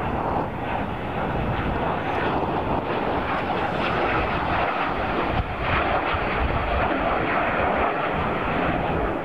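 Airbus A380 taxiing on its four jet engines near idle: a steady, even rush of engine noise.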